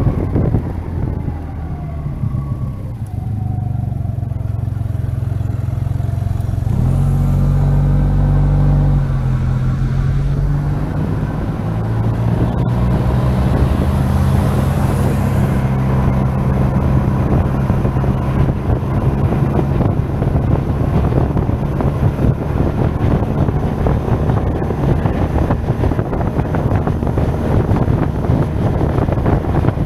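SYM Maxsym TL 508 maxi-scooter's parallel-twin engine running under wind rush on a helmet-mounted microphone while riding. The engine note falls in the first few seconds, rises about seven seconds in and again about twelve seconds in, then holds steady at cruising speed. The engine is being ridden gently during break-in.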